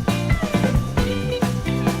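Background music: a rock track with guitar and a drum kit keeping a steady beat.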